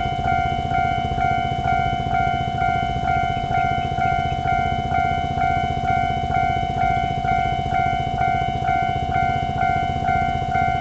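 Level crossing warning bell on a Taiwan Railways crossing, ringing electronically in an even, repeating chime about twice a second, over a steady low rumble.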